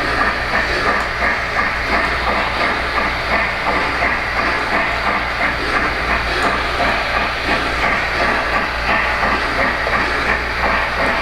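Electronic steam sound from an O-gauge model steam locomotive running on the layout: steady, rhythmic chuffing with hiss.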